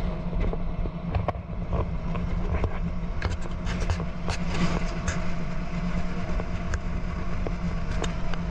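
Auto-rickshaw driving along a road, heard from inside its open cab: a steady motor hum over road rumble, with frequent small rattles and clicks from the body.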